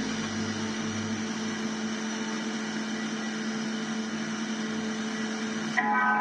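Steady static hiss with a constant hum from the loudspeaker of a homebuilt SSB Semar 40 m band receiver tuned between stations. Near the end a voice or music signal starts to come through the noise.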